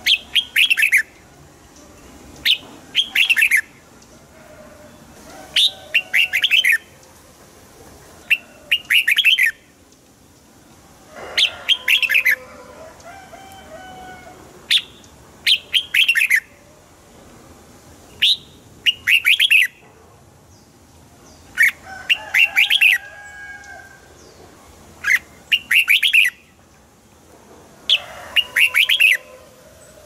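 Red-whiskered bulbul singing: short phrases of quick, bright chirping notes, repeated every two to three seconds, with fainter, lower whistled calls between them.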